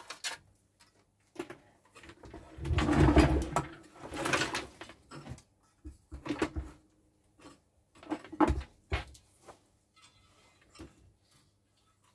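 Handling clatter as a CRT and a monitor's plastic frame and metal chassis are moved and set in place: scattered clicks and knocks, with a louder stretch of scraping and rubbing about three seconds in and a couple of sharper knocks later.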